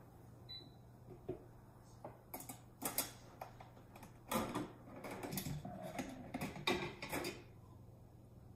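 A Pampered Chef Deluxe Air Fryer gives a short high beep about half a second in. Then its door opens and the wire-mesh rotisserie fry basket is unhooked and lifted out with the retrieval tool: a run of metal clicks and rattles.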